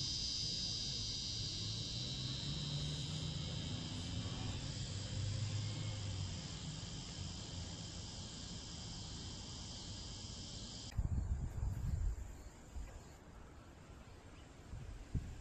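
Insects chirring steadily in a high, even drone that cuts off abruptly about eleven seconds in. Low rumbling thumps follow near the end.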